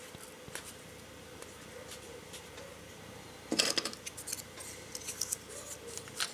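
Light clicks and handling of small hard plastic parts as the two halves of a Streamlight TLR-6 laser housing are fitted and snapped together around a Glock 26's trigger guard. A louder brief rustle comes about three and a half seconds in, followed by a quicker run of clicks.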